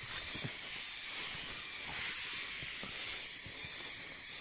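A steady high hiss, with soft rustling and a few faint taps as a person moves and settles onto the ground under a tarp shelter.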